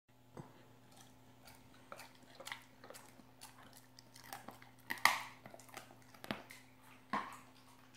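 English setter chewing on a bone: a series of irregular short crunches, the loudest about five seconds in.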